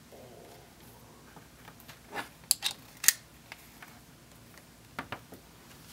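Sharp little metal clicks from a belt's small metal post fitting being handled and pressed into a leather strap: a quick run of four clicks a little over two seconds in, and two more near the end.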